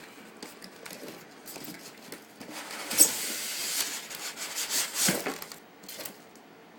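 Packaging being handled and rummaged through: a rustling stretch in the middle, with scattered clicks and a couple of knocks about five seconds in.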